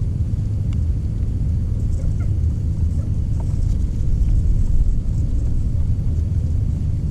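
Steady low outdoor rumble, with a few faint short chirps and ticks above it.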